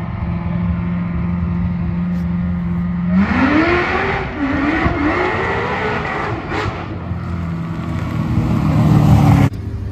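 Drag car's engine running steadily at the line, then launching about three seconds in: the revs climb, dip at a gear change about a second later and climb again, growing louder as the car comes down the strip past the listener. The sound cuts off suddenly near the end.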